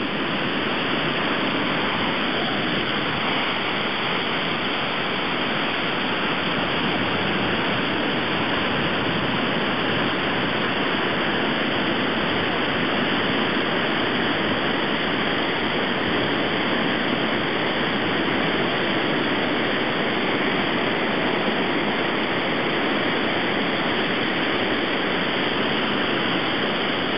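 River in flood pouring over the concrete spillway of a flood-control regulating weir: a steady, loud rush of turbulent water.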